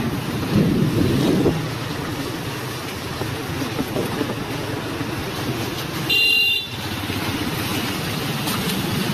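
Wind buffeting the microphone of a moving scooter, with one short vehicle horn honk about six seconds in.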